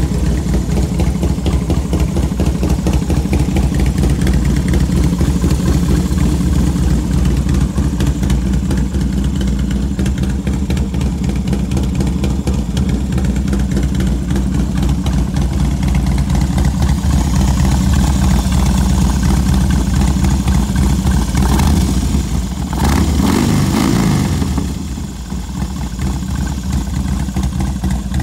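A Harley-Davidson Dyna's air-cooled V-twin, built out to 107 cubic inches with Woods 777 cams and a ported throttle body, idling steadily through its exhaust. Late on, a single throttle blip rises and falls.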